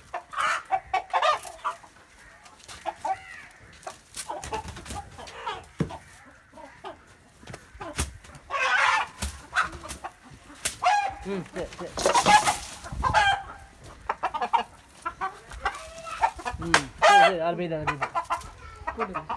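Two fighting roosters in a fierce fight: repeated squawks and clucks over sudden bursts of scuffling and wing flapping.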